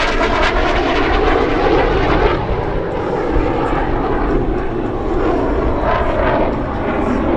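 CF-18 Hornet's twin jet engines, a loud, continuous roar with bands of whine that slowly shift in pitch as the jet flies past.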